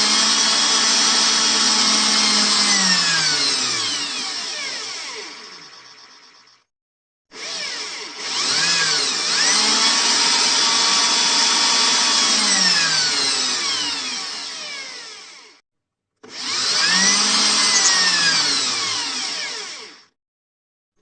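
Electric drill (mesin bor) run three times: each run starts abruptly, holds at speed for a few seconds, then winds down with a falling pitch as it coasts to a stop, with short silent gaps between runs.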